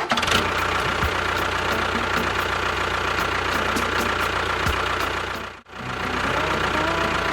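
An engine running steadily with a low hum, cutting out for a moment about five and a half seconds in and then starting again.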